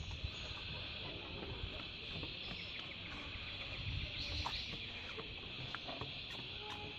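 Steady high-pitched buzzing chorus of rainforest insects, with low rumbling noise on the microphone underneath.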